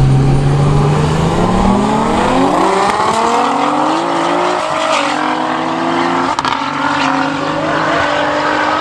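Two Nissan GT-Rs, an R32 Skyline and an R35, accelerating hard together in a roll race. The engine note climbs steeply for the first few seconds, then dips and climbs again with each upshift.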